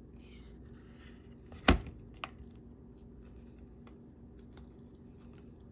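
A metal spoon knocks once, sharply, against a plastic mixing bowl as a spoonful of butter is shaken off into it, followed by a lighter tap about half a second later, over a faint steady hum.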